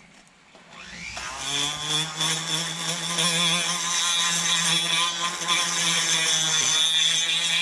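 Handheld electric rotary carving tool spinning up with a rising whine about a second in, then running steadily at high speed as its abrasive bit grinds into a block of wood.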